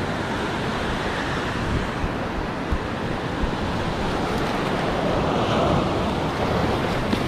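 Ocean surf breaking and washing up a sand beach, with wind buffeting the microphone; the wash swells about five seconds in.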